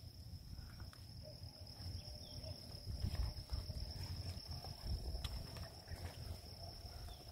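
Outdoor garden ambience: a steady, high-pitched insect drone, with an irregular low rumble and a few faint clicks from the handheld phone as it is carried.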